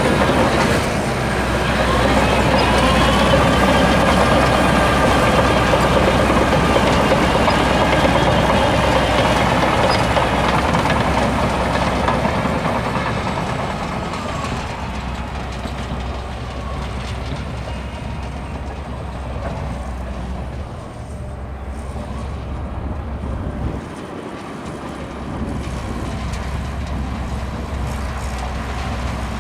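Shantui DH17C2 bulldozer working under load. Its heavy diesel engine and tracks run continuously, with a high tone that rises about a second in and drops away around halfway through, after which the machine runs quieter.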